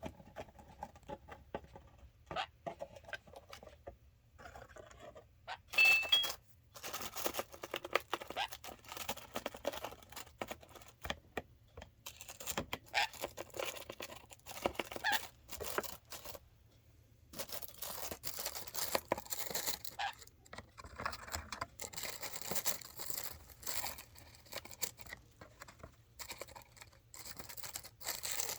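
A bag rustling and crinkling in irregular bursts as a pet cockatiel and conure tug and chew at it.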